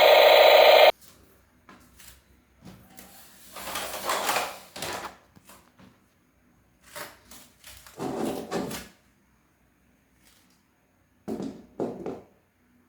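A loud sound cuts off suddenly about a second in. It is followed by a few short, separate clatters and scrapes of objects being handled, with quiet gaps between them.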